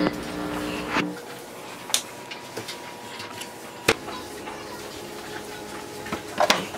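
Quiet room tone broken by a few separate sharp clicks and knocks, roughly a second or two apart, with a small cluster of them near the end.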